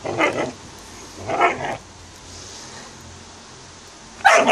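A dog barking: a bark at the start, another about a second and a half in, and a louder one near the end.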